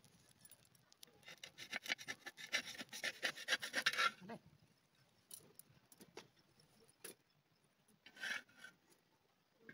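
Steel spatula scraping across a clay pan as it works loose a rice pancake: a quick run of scraping strokes for about three seconds, then a shorter scrape near the end.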